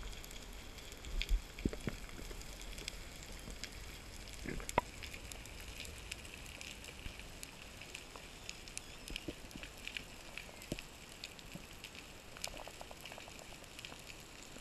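Underwater reef ambience: a dense, continuous crackle of short clicks over a steady hiss, picked up underwater by the camera, with a few louder knocks in the first five seconds.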